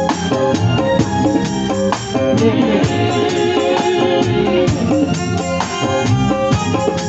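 Dangdut band playing live, with drums and tambourine keeping a busy beat under guitar and keyboard melody lines.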